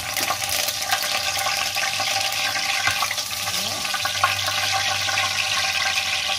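Curry leaves frying in hot oil in a wok: a steady, loud sizzle full of small crackles and spits.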